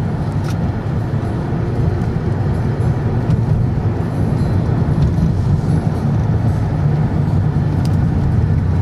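Steady low drone of a car's engine and tyres on the road, heard from inside the cabin while driving.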